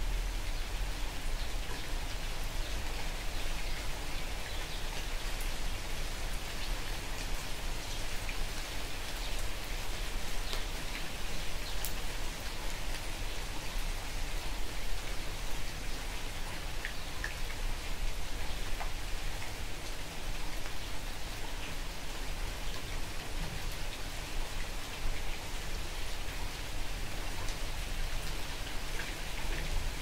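Steady light rain falling, an even hiss sprinkled with many small ticks of drops striking surfaces.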